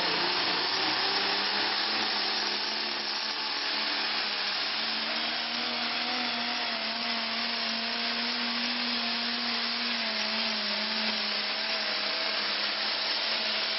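Turbocharged pulling tractor's diesel engine running at full power under load as it drags a weight-transfer sled, with a high whine. The engine note climbs slowly, then drops a little about ten seconds in.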